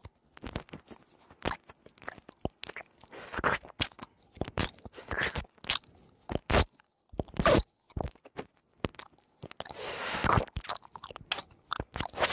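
ASMR mouth sounds made right against a wired earphone's inline microphone: wet lip smacks and tongue clicks in an irregular stream, with a few longer hissy, breathy bursts.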